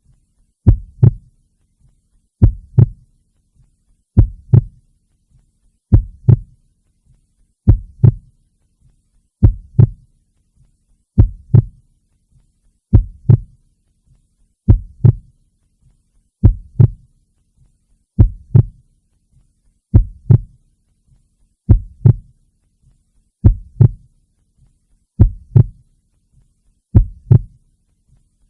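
A slow, steady heartbeat: a low double thump, lub-dub, about every second and three quarters.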